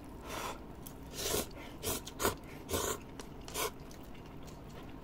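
Someone eating instant cup noodles: about six short, noisy slurping and chewing sounds in the first four seconds, less than a second apart.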